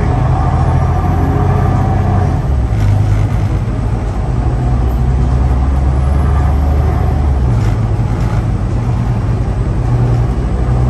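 City bus engine and road noise heard from inside the passenger cabin while the bus drives at speed: a steady low drone whose pitch shifts a couple of times.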